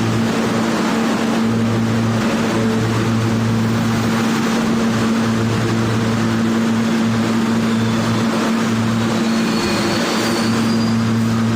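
R160B subway car running on the track: a steady loud rumble with a constant hum and a lower hum that cuts in and out, and a faint high squeal near the end.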